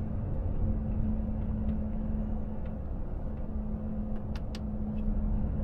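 Inside the cab of a Volvo FH truck cruising at about 58 km/h: steady engine drone and road rumble. The engine hum dips about halfway through and comes back near the end, with a few faint clicks.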